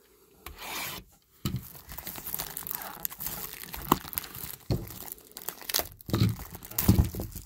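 Clear plastic shrink-wrap being torn and crinkled off a trading-card box by hand: a run of irregular crackles and snaps, starting about a second and a half in.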